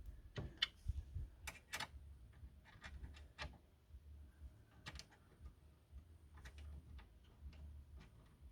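Scattered small clicks and light taps of metal washers and nuts being fitted onto bolts by hand, a dozen or so at irregular spacing.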